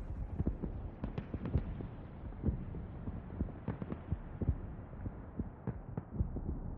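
Irregular dull thumps and a few sharper knocks, several each second, over a faint hiss.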